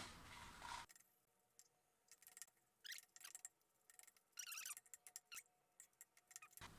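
Near silence, with a few faint, short, high squeaks around the middle.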